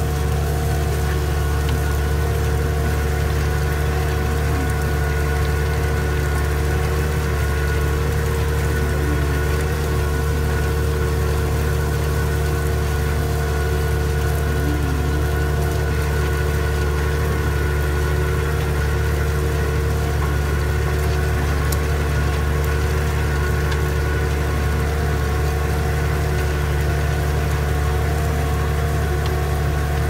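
Tractor engine running steadily under load while pulling a mouldboard plough through the soil, heard from inside the cab as a constant low drone.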